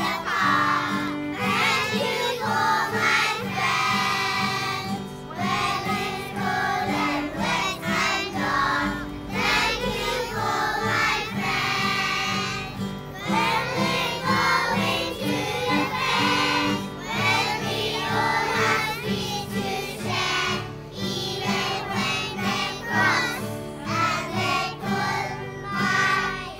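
A class of young children singing a song together in unison, accompanied by a strummed acoustic guitar.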